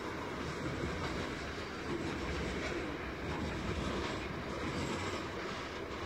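Freight train's grain hopper wagons rolling along the track, a steady rumble with wheel-on-rail noise.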